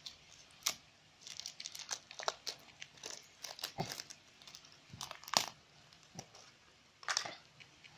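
Small clear plastic toy wrapper crinkling and tearing in a child's hands as the toy is unwrapped, in irregular crackles with a louder one about five seconds in.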